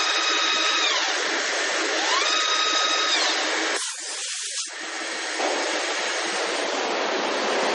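Leadwell VE-32i CNC machining centre drilling under flood coolant: a steady hiss of coolant spray with the machine running. A machine whine rises, holds for about a second and falls away, twice in the first half; the hiss thins briefly about four seconds in.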